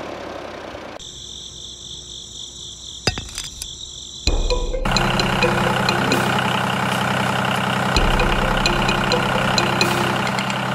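A quiet, high, steady chirring, then about four seconds in a tractor-style diesel engine sound starts abruptly and runs steadily with a regular knocking beat.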